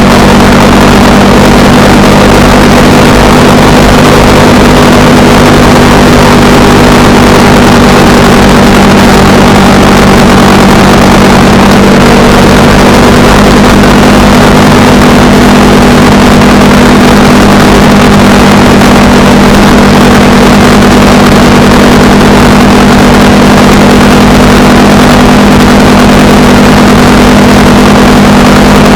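Honda Rebel 300 motorcycle's single-cylinder engine running at a steady cruising speed, its note holding level with a constant rush of noise over it.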